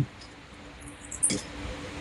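Steady hum of 3D printers running in the background, with a few faint high ticks and one sharp knock a little over a second in.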